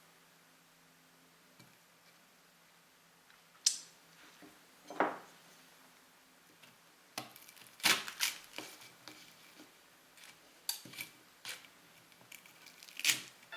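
Cutlery clinking and scraping on a plate in scattered short taps, with a faint low hum in the first half.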